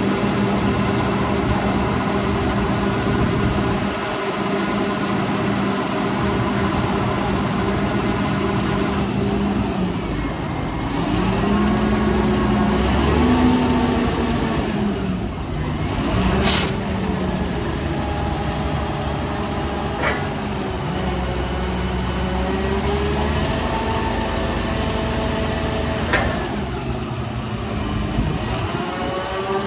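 A digger derrick truck's diesel engine runs steadily, driving the derrick's hydraulics. Whining tones rise and fall as the boom and auger are worked, with a few sharp clicks about halfway through and near the end.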